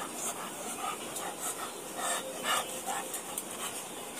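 Labrador dog panting with its mouth open, a run of short, quick breaths.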